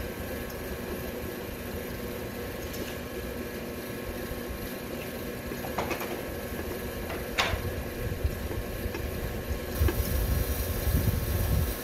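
A wrench working on bolts in a steel channel: two sharp metal clinks about a second and a half apart over a steady low rumble, with heavier low rumbling near the end.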